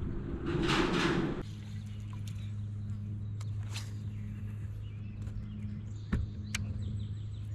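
A short rush of noise stops suddenly about a second and a half in, and a steady low motor hum then carries on, with a few sharp clicks near the middle and end.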